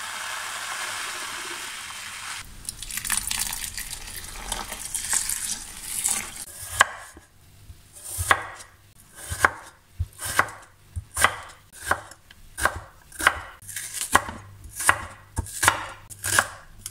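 Dry farro grains poured from a bag into a bowl with a steady hiss, then from about seven seconds in a cleaver chopping vegetables on a wooden cutting board, even strokes about one and a half a second.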